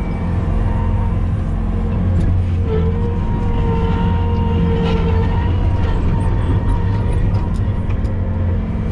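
Heavy-equipment engine running steadily at a constant low drone, with a whining tone over it that wavers in pitch, and a few light knocks.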